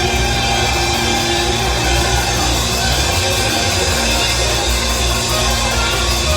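Loud live band music with drums and guitar, held pitched notes sustained over a heavy low end.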